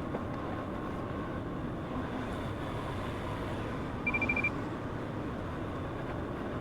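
Excavator engine running steadily, with a short burst of rapid, high-pitched electronic beeps about four seconds in.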